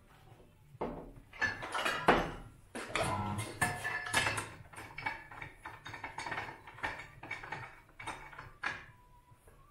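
Steel motorcycle-wheel adapters clanking and rattling against the tire changer's turntable clamp jaws as they are fitted by hand: a run of irregular metallic knocks, loudest about two seconds in, thinning out near the end.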